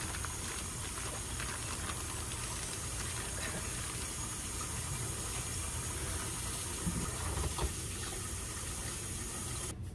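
Kitchen tap running steadily into the sink, water filling a dish left to soak, with a couple of light knocks about seven seconds in. The running water stops suddenly near the end.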